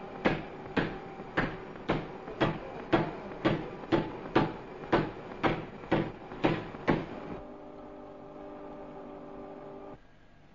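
Sharp knocks, evenly spaced at about two a second, over a steady held tone. The knocks stop about seven seconds in, and the tone carries on until it cuts off abruptly near the end.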